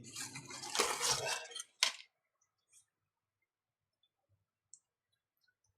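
Hands handling the opened tablet and small hard parts on a workbench: scraping and light clinking for about two seconds, ending in one sharp click, then only a few faint ticks.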